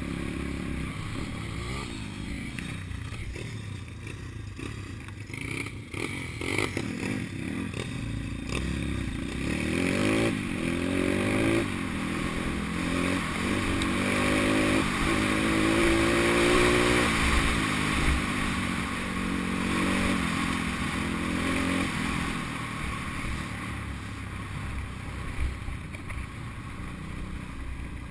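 Pitbike engine running as the bike rides along a dirt track. The engine note climbs and drops several times, and it is loudest around the middle.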